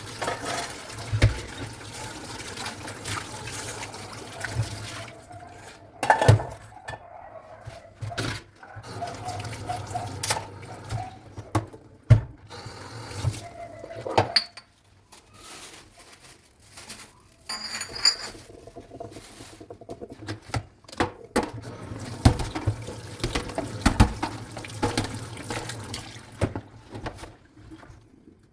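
Washing dishes by hand at a kitchen sink. Water runs from the tap for the first few seconds, then dishes clink and knock now and then as they are handled and scrubbed.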